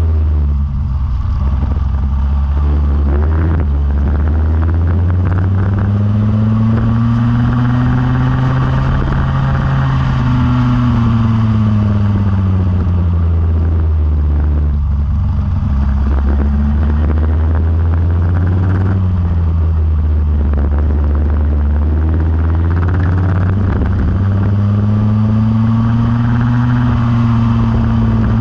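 Go-kart engine running hard around a lap: its pitch climbs slowly under acceleration, drops off when the throttle comes off, and climbs again, several times over.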